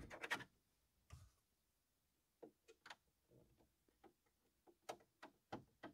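Faint, scattered clicks and taps of a hand pressing and tugging on a 3D-printed plastic mount snapped into a truck's dash panel, in otherwise near silence.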